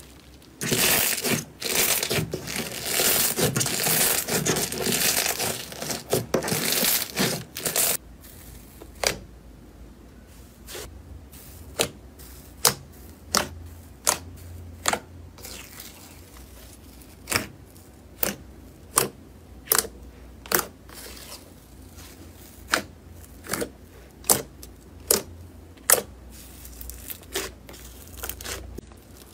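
A crunchy ASMR material being worked by hand: dense crackling and crinkling for about seven seconds, then a run of separate sharp clicks or pops roughly once a second over a low hum.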